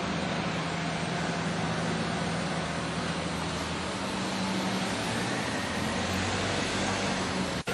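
Steady vehicle noise with a low hum that fades out about five seconds in. The sound cuts out for an instant near the end.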